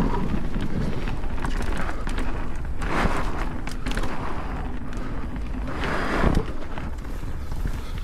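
Propain Spindrift enduro mountain bike riding down a dirt forest trail: tyres rolling over dirt and roots, the bike rattling and clicking, under a steady rumble of wind on the microphone. Louder rushes come about three and six seconds in.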